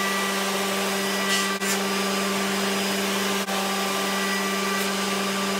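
Benchtop thickness planer running, its motor giving a loud, even drone with a steady hum, as a pine board is planed.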